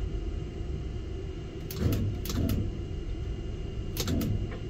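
Steady low rumble of a tower crane heard from inside its cab, with short bursts of noise about two seconds and four seconds in.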